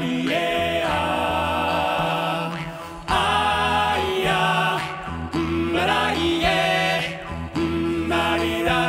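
Male vocal ensemble singing a cappella in close harmony over a sustained low bass part. The phrases break briefly, and a louder phrase comes in about three seconds in.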